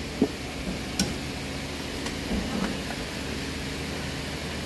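Steady rushing noise of a large pedestal fan in a workshop, with a few light clicks and knocks scattered through it.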